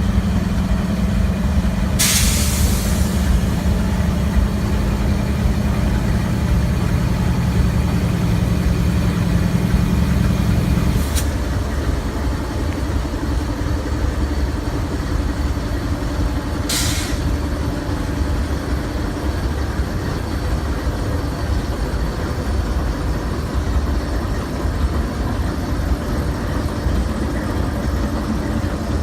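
Diesel locomotives idling with a steady low hum that drops to a lower note about eleven seconds in, with a click. Short bursts of air hiss about two seconds in and again near seventeen seconds.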